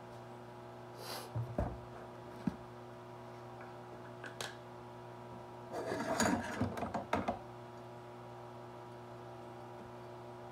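Kitchen utensils and a container being handled: a few knocks and clinks in the first half, then a burst of clattering about six to seven seconds in, over a steady hum.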